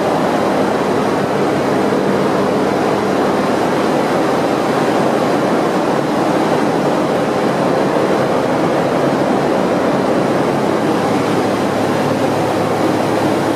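Steady, loud machinery noise of a container ship's engine room with the machinery running: an even din with a low steady hum under it that does not change.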